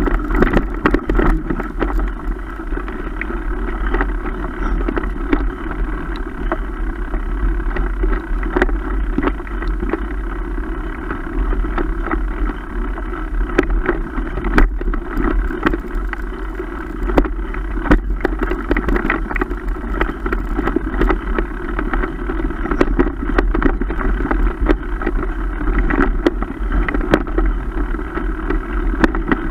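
A mountain bike riding fast over a bumpy dirt trail, heard from a camera mounted on the bike: steady rolling noise from the tyres and frame, with frequent sharp rattles and knocks as it goes over bumps.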